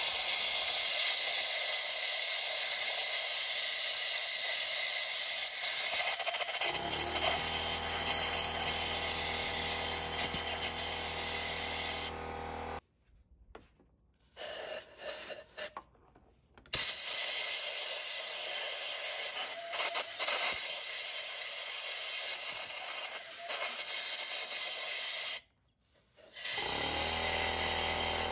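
Compressed-air blow gun hissing steadily as it blows out a freshly tapped cylinder-head bolt hole, cutting off about 12 seconds in. Then short spray bursts and more long hissing from an aerosol brake cleaner can and the air gun, stopping abruptly twice.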